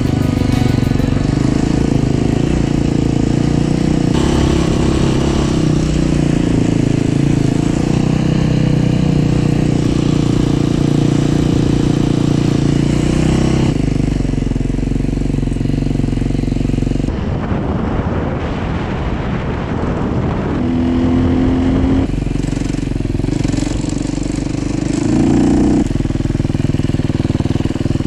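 Dirt bike engine running as it is ridden, with wind noise on the microphone, in several short clips cut together so the engine sound changes abruptly every few seconds.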